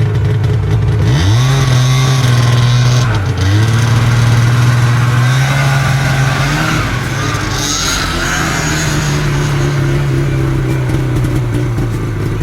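Dubbed motor-vehicle engine sound effect: it revs up about a second in, drops briefly and picks up again near three seconds, then runs steadily with small changes in pitch.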